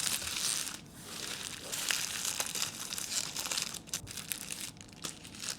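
Wrappers of sealed trading card packs crinkling continuously as the packs are handled, with small crackles and clicks.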